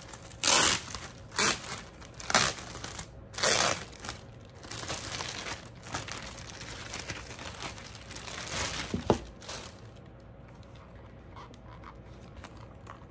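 Clear plastic bag crinkling and rustling close to the microphone as it is handled and pulled open, with four loud crackles in the first four seconds. Lighter rustling follows, ending with a sharp click about nine seconds in, then only faint handling.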